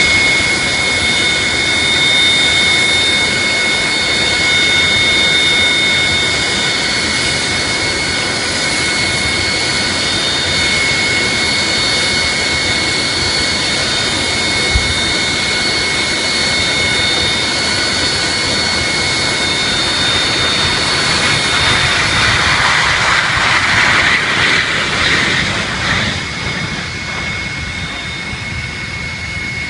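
Airliner engines running with a steady high whine over a broad rushing noise. The rush swells about three-quarters of the way through and then eases, and there is a single brief low thump about halfway through.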